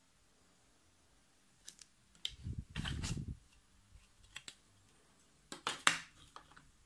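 Plastic ruler and set square being handled on paper: scattered clicks and taps, a denser scuffing knock about two and a half to three seconds in, and the sharpest clicks about six seconds in as the ruler is set down.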